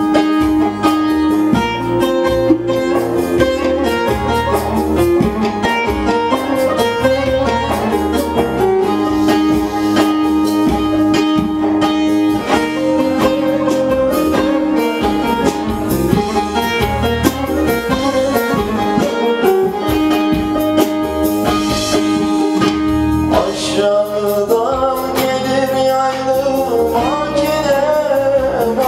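Turkish folk music led by a bağlama, a plucked long-necked lute, playing held and ornamented melodic notes over a low bass part. In the last few seconds a man's voice comes in singing in wavering, ornamented lines.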